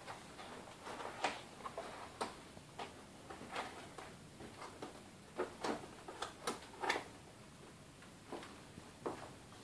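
Irregular light clicks and knocks of cardboard shelf trays being pushed and fitted into a cardboard display stand, with a few sharper taps a little past halfway.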